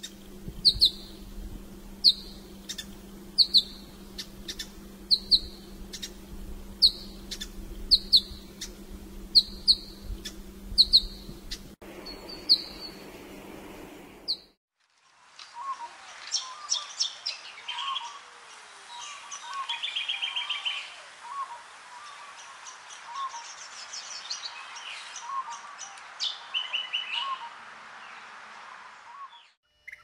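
A New Holland honeyeater repeating a sharp, high call about once every second and a half over a steady low hum. It is followed by a brown honeyeater singing a varied song with quick trills.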